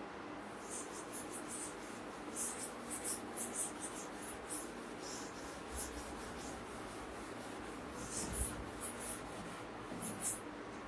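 A cloth wiping chalk off a chalkboard in quick, irregular strokes, heard as a run of soft swishes that starts about a second in and stops shortly before the end.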